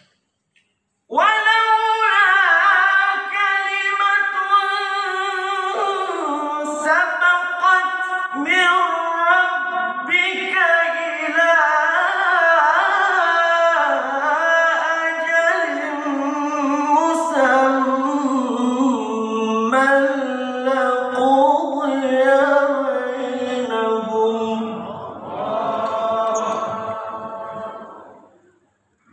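A male Qur'an reciter chanting in melodic tilawah style, unaccompanied: one long, ornamented phrase that starts about a second in, winds slowly downward in pitch and fades out near the end.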